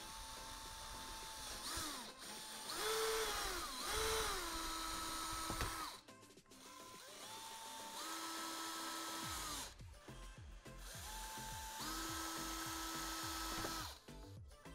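DeWalt cordless drill boring small holes through the plastic lid of a storage tote with a twist bit, in about five short runs. Its motor whines up to speed, holds a steady pitch, and winds down between holes.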